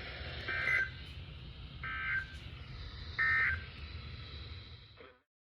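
Emergency Alert System SAME digital data bursts, three short buzzy screeches about a second and a half apart, typical of the end-of-message signal that closes a weather warning. They play over the broadcast's hiss and hum, and the audio cuts off just before the end.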